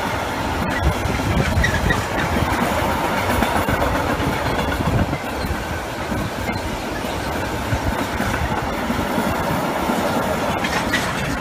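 Freight train of intermodal container and tank-container wagons rolling past, a steady rumble of steel wheels on the rails with a few sharp clacks over the rail joints.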